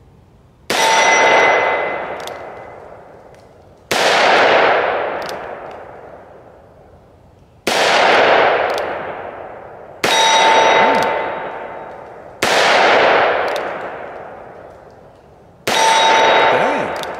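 Six shots from a Taurus Tracker 692 revolver firing .357 Magnum single action, spaced a few seconds apart, each echoing away over about two seconds. Three of them, the first, fourth and last, are followed by a short metallic ring: hits on steel.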